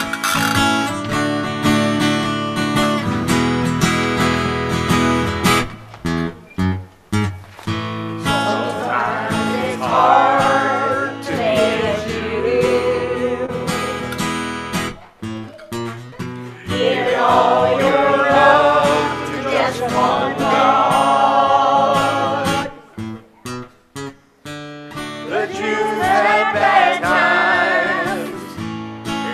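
Country song with acoustic guitar accompaniment. After an instrumental intro of about eight seconds, a singer comes in, singing in phrases with short breaks between them.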